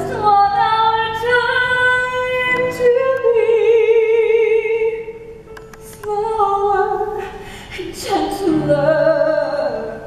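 Live stage-musical singing: a voice holds long sung notes, several with a clear vibrato, pausing briefly twice.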